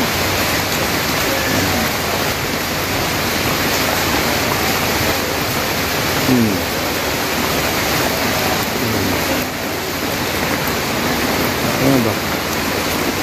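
Steady rain falling on wet concrete and puddles, an even, unbroken hiss.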